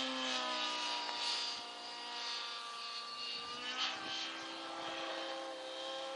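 Align T-Rex 700 RC helicopter in flight, its rotor and motor giving a steady whine of several tones together. The pitch sags and recovers a little as it is thrown about in hard manoeuvres.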